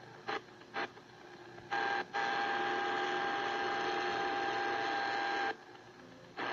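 Portable multi-band radio's speaker giving static as the tuning knob is turned between stations: short bursts of hiss, then about four seconds of steady static with a thin high whistle through it, cutting off about a second before the end.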